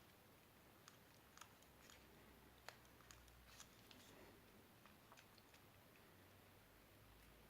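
Near silence, with faint scattered light clicks and ticks and one sharper tick about two and a half seconds in.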